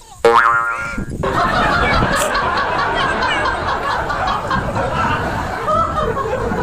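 A cartoon 'boing' sound effect rising in pitch for about the first second, then a dense laughing and snickering track that runs on without a break.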